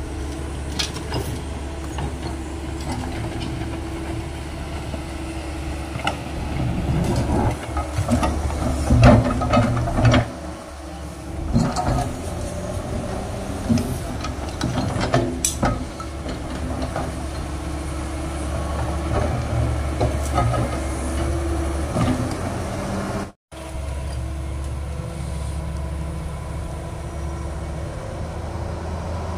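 Tracked hydraulic excavator's diesel engine running steadily under load while it digs, with scattered clanks and knocks of scrap iron and debris in the bucket, most of them between about seven and ten seconds in and again around fifteen seconds.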